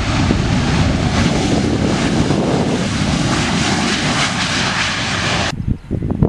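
Jet engines of a Ryanair Boeing 737-800 running at high power as the airliner speeds along the runway: a loud, steady roar. It cuts off abruptly about 5.5 seconds in, leaving gusty wind buffeting the microphone.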